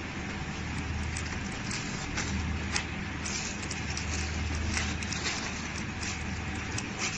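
Snack packing machine running with a low hum that rises and falls, over frequent short clicks and plastic crackles from filled snack bags being handled and set on a scale.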